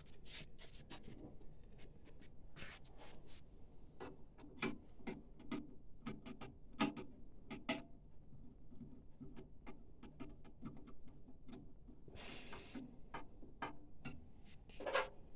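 Light, irregular clicks and taps of printer parts being handled, with a brief rubbing sound about twelve seconds in.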